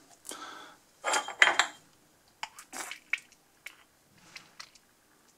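A bottle of barbecue sauce is handled and its cap worked open, then the thick sauce is poured into a small ceramic dish. There is a louder noisy burst about a second in, then several light clicks and knocks from the cap and the dish.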